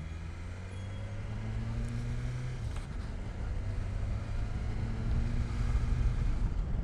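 Vehicle engines running at low speed, their pitch slowly rising over the first couple of seconds, growing louder toward the end.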